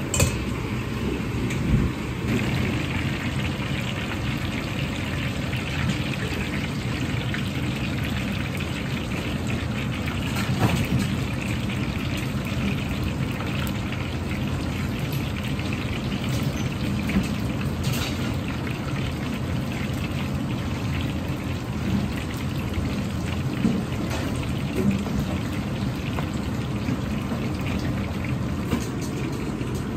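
Starch-coated firm tofu deep-frying in a wok of oil: a dense, steady crackling sizzle, with a few sharp clicks.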